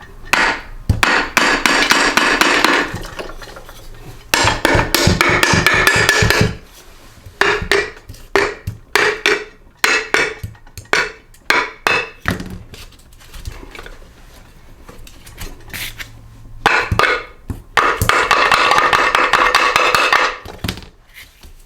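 A socket wrench ratcheting in three long runs of rapid clicks, with separate metal clinks and knocks between them, as the 3/8-inch oil-pan bolts come off a Briggs & Stratton small engine.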